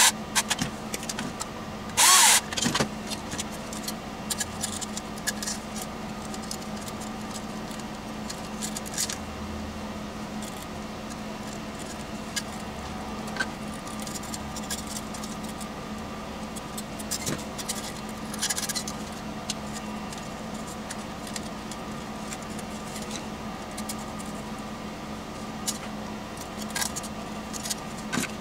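Cordless drill run in one short burst about two seconds in, then scattered light clinks and rattles of small metal parts being handled, over a steady low hum.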